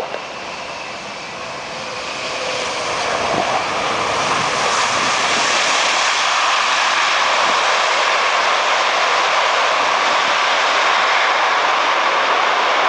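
Jet engines of a British Airways Airbus A380, four Rolls-Royce Trent 900s, rolling out on the runway after landing. A steady rush that swells over a few seconds, from about two seconds in, then holds loud.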